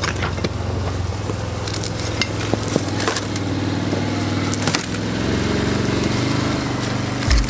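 Side-by-side UTV engine running as it drives slowly through brush, with twigs and dry branches cracking and snapping under it. The engine picks up a little about five seconds in.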